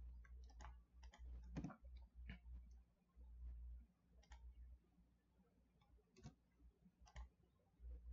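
Faint, scattered clicks of a computer mouse and keyboard during 3D modelling work, a few short clicks spaced irregularly over a low steady hum.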